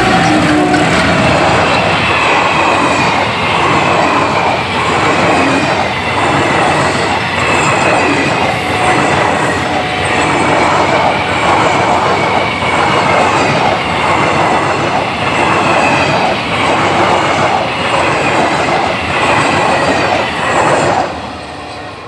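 A WDM3D diesel locomotive and its long rake of passenger coaches passing close at speed, the wheels clattering rhythmically over the rail joints under a high steady tone. The noise drops off suddenly about a second before the end as the last coach goes by.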